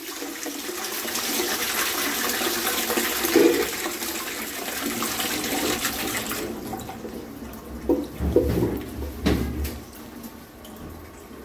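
Toilet flushing: a loud rush of water into the bowl that drops off sharply after about six and a half seconds to quieter running water. A few dull knocks come near the end.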